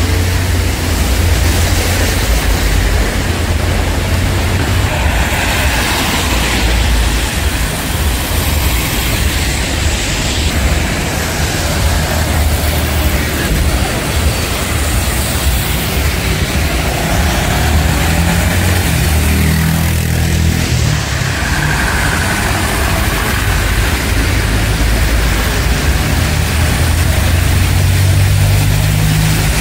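Street traffic on a wet road: car and truck engines running and tyres hissing through water, over a steady wash of noise. The engine rumble grows near the end.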